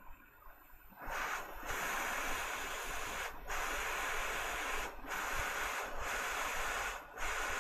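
Hot-air rework station blowing on a phone logic board to keep it hot while old solder is mopped off: a steady hiss of air that starts about a second in and briefly dips several times.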